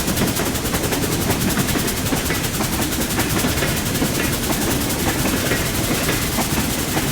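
Train running steadily, a low rumble under a fast, even clatter.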